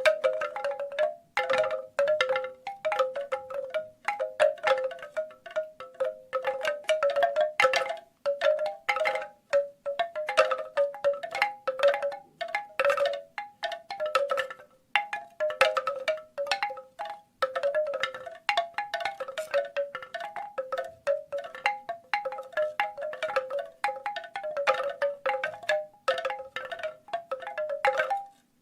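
Bamboo wind chimes clacking together in quick, irregular clusters of knocks separated by brief lulls. The same few notes recur.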